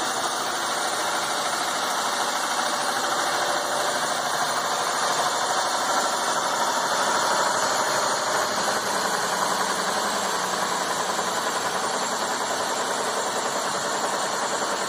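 A-26 Invader's flap drive system running: the central electric flap motor turning the drive shafts and wing flap transmissions, a steady, even mechanical running noise as the flaps move.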